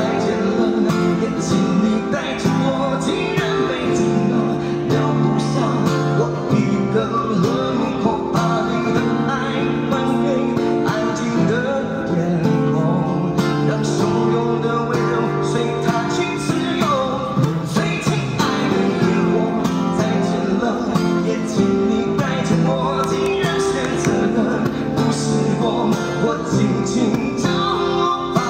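Amplified acoustic guitar strumming with a man singing a slow pop ballad into a microphone.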